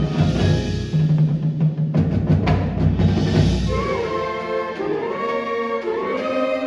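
Marching band music: heavy low drum and timpani rolls and strokes for the first few seconds, then a held melody from the winds from about four seconds in.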